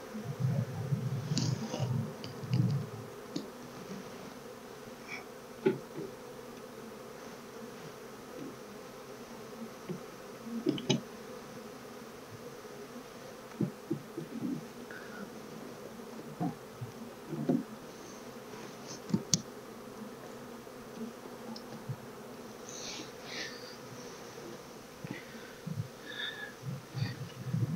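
Honeybees buzzing around opened hive boxes: a steady hum, with scattered light knocks and clicks as wooden hive frames are handled.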